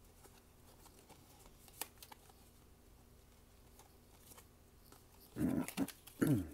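Faint clicks of trading code cards being handled, then two short dog barks falling in pitch near the end.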